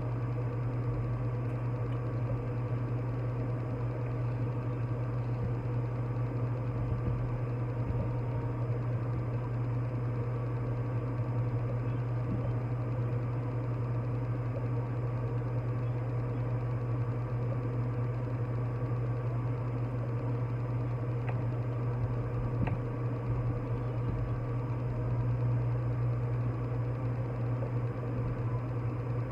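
Countertop blender motor running steadily at a constant speed, blending fruit and vegetables into juice, with a strong low hum.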